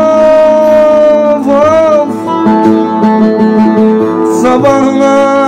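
A man singing a Turkish folk song (türkü), accompanying himself on a plucked bağlama (long-necked saz). His voice holds a long note, wavers through an ornament about a second and a half in, and comes back on a new held note near the end.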